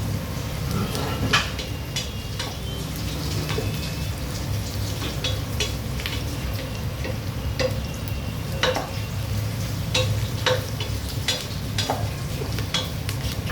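Food frying in a pot while it is stirred: a utensil clinks and scrapes against the pan many times over a steady sizzle.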